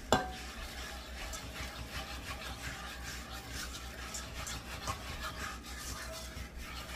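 A wire whisk stirring and scraping through a thick milk-and-flour cream sauce in a skillet, working out the lumps, with a steady rubbing scrape. A single sharp knock just at the start.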